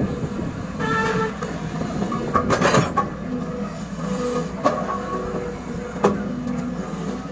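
SANY SY210C-9H excavator working: the engine runs with a steady rumble under short whining, squealing tones that come and go. Sharp knocks come in a cluster about two and a half seconds in, then singly twice more.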